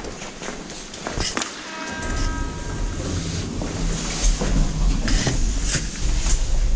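Passenger elevator in operation: a few clicks, then a short electronic tone about two seconds in, followed by a steady low rumble of the running car with scattered knocks and clicks.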